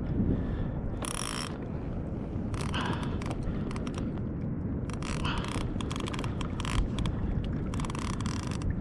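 Fishing reel being cranked in short spells, with a mechanical whir every second or two. Steady wind and water noise runs underneath.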